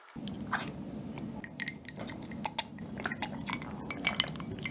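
Ice clinking against a glass mug of iced americano as it is drunk from: a scattering of small, light clicks.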